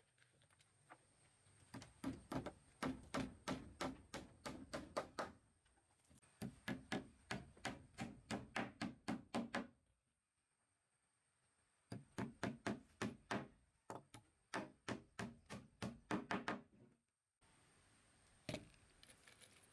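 Rapid, even striking, about four blows a second, in three runs of a few seconds each with short pauses between, then a single knock near the end.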